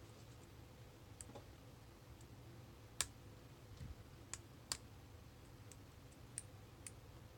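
Faint, scattered clicks of a lock pick and tension wrench working the pins of a Craftsman brass padlock fitted with spool pins. The sharpest click comes about three seconds in, with a few lighter ones after it.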